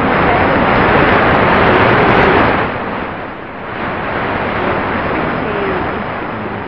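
Shortwave receiver hiss and static from a Tecsun PL-680 tuned to 11780 kHz, with a weak voice broadcast barely coming through beneath the noise. The static swells, dips about three seconds in, then returns.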